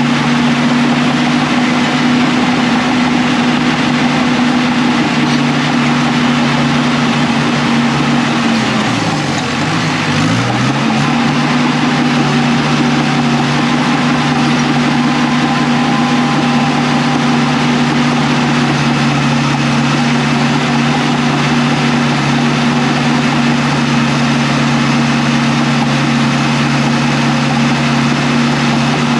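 Heavy earthmoving machine's diesel engine running steadily at high revs. About nine seconds in, its pitch briefly drops and comes back up.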